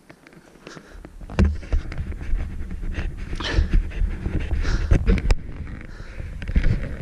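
A man panting hard with repeated heavy breaths while hiking uphill on a rocky trail, out of breath from exertion at high altitude, over a low rumble on the microphone.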